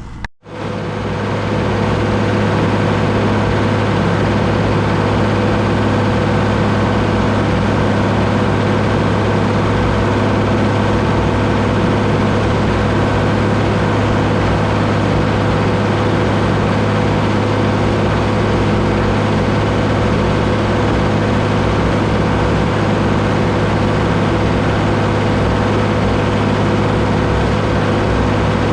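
Deutz D130 06 tractor's air-cooled six-cylinder diesel running steadily at a constant speed, after a brief break in the sound about a third of a second in.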